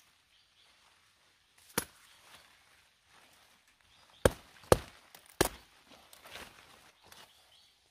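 Knife chopping through a thick broccoli stalk: four sharp cracks, one about two seconds in and three close together around the middle, with faint leaf rustling between them.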